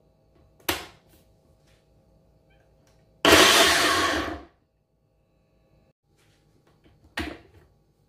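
Ninja personal blender running in one short burst of just over a second, chopping carrot with oil and water. A knock about a second in and another near the end as the blender cup is set on and lifted off the base.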